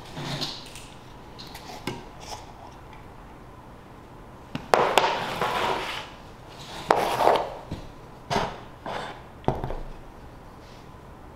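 A small metal tin of paint coating being opened and handled: a sharp clink and scraping as the lid comes off a bit before halfway, then several shorter clinks and knocks as the tin, lid and a paintbrush are set down and picked up on the tabletop.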